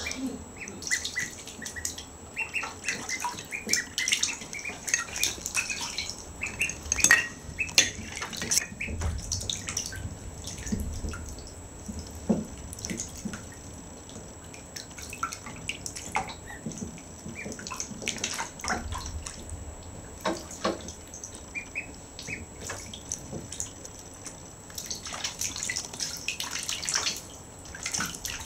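Shallow bathwater splashing and dripping in a bathtub as ducklings paddle and dabble, a busy, irregular patter of small splashes and drips.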